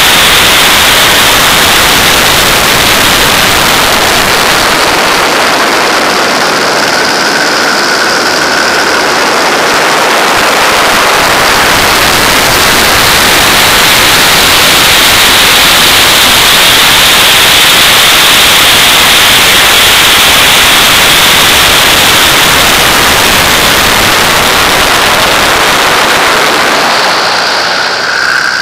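Loud, steady rush of wind blasting over an externally mounted camera microphone on a Pitts aerobatic plane in flight, with the aircraft's engine blended into the noise.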